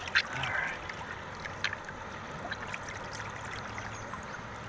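Shallow river current trickling and flowing steadily, with a couple of brief sharp splashes or knocks, one just after the start and one about one and a half seconds in.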